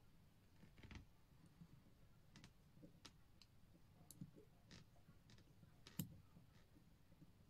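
Faint, irregular small clicks of metal tweezers and tiny parts touching as a Pulsar VX33 quartz watch movement is reassembled, the sharpest click about six seconds in.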